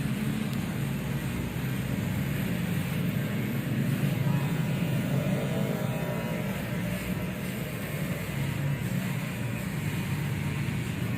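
Electric shaver running with a steady low hum during a head shave.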